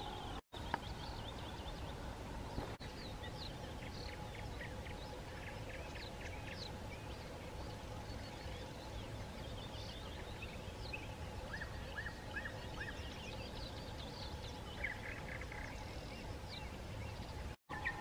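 Spring bird chorus by a river: many short, high chirps and trills from several small birds, with a run of four quick notes and later a buzzy trill, over a steady low rumble.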